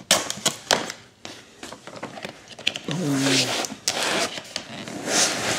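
Packing tape being cut and torn off a laptop's cardboard box, with clicks, scraping and rustling as the box is opened, and tearing hisses around the middle and near the end. A short voiced grunt about three seconds in.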